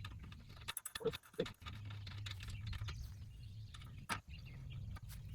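Scattered clicks and knocks of small hard objects being handled, a cluster about a second in and one more about four seconds in, over a steady low hum.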